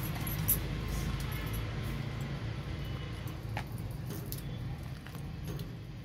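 A steady low rumble with a couple of sharp knocks from a large knife striking a wooden plank while raw chicken is cut into pieces.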